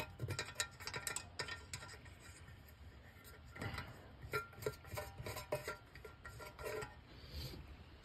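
Light metallic clicks and scrapes as wing nuts are turned off a steel air cleaner lid by hand.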